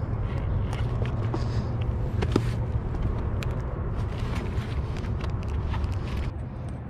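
Outdoor noise: a steady low rumble with scattered light ticks and taps throughout.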